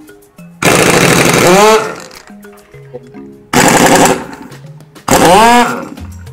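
Electric impact wrench hammering on the drive-pulley nut of a Yamaha Mio Sporty's CVT to break it loose, in three loud bursts, each ending with the motor winding down.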